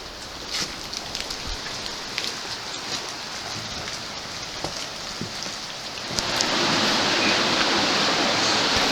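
Steady hiss of falling or rushing water with scattered light taps, growing noticeably louder about six seconds in.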